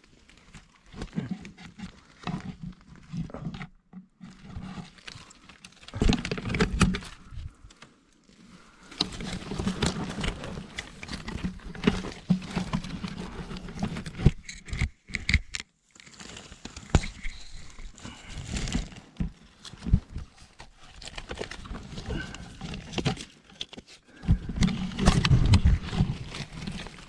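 Dry leaves, sticks and bark rustling and scraping close to the microphone in irregular bursts as a man crawls and reaches between logs, with heavy, grunting breaths of effort.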